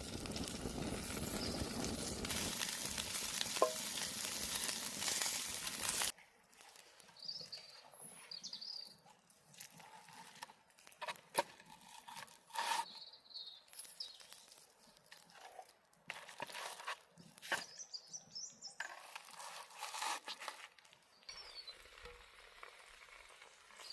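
Chicken sizzling as it grills, a dense crackling hiss that cuts off suddenly about six seconds in. After that, quieter scattered clicks and knocks with a few faint high chirps.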